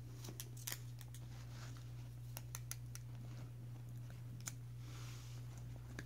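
Scattered sharp clicks and snaps, about nine of them, mostly in the first three seconds with one more a little past four seconds, as a puppy and a white-bellied caique play-bite each other. A steady low hum runs underneath.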